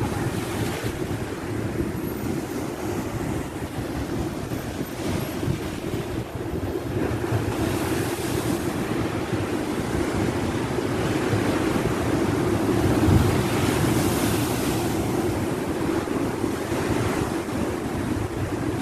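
Rough storm surf breaking and washing foam against a rock revetment, a continuous rushing that swells louder with each wave, heaviest about two-thirds of the way through. Strong wind buffets the microphone.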